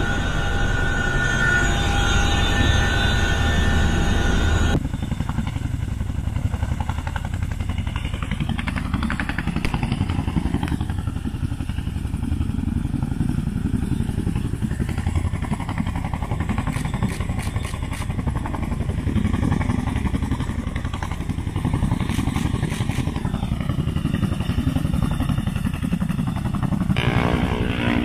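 Inside an MH-47G Chinook's cabin: a loud, steady engine and transmission drone with high whining tones. It cuts abruptly, about five seconds in, to the Chinook heard from outside as it hovers close to the ground, its tandem rotors giving a steady low beat, with a brighter rush of noise near the end.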